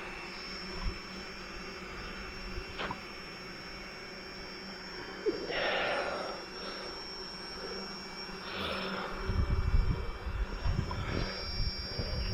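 DJI FPV drone's propellers buzzing in flight as a steady high whine, swelling briefly about six and nine seconds in. From about nine seconds in, a low, gusty rumble joins it.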